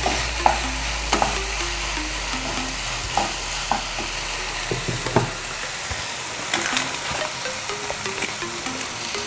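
Tomato-onion masala sizzling in a kadai of butter and oil as it is stirred, with a spoon scraping and clicking against the pan now and then.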